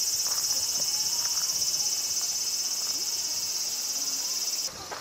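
Cicadas in a summer chorus: a loud, steady, high shrill buzz with a fine rapid pulse that cuts off suddenly near the end.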